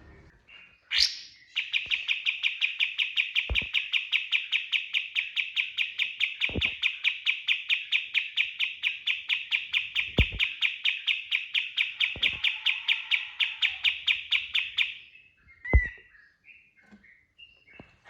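A kapas tembak bulbul giving its 'tembakan' song: a long, fast run of evenly repeated high chirps, about seven a second, lasting some thirteen seconds and ending abruptly, then a few scattered short notes. A few low thumps fall through it, the loudest near the end.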